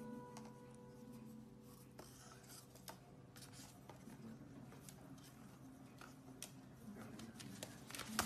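Faint scratching and scattered light taps over a low steady hum: a parrot's claws and a cardboard toilet-paper tube scraping and knocking on a stone countertop.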